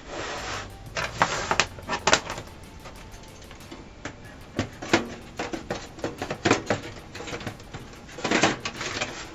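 Computer parts being handled during PC assembly: a run of irregular plastic and metal clicks and knocks, with a scraping rustle near the start and another near the end.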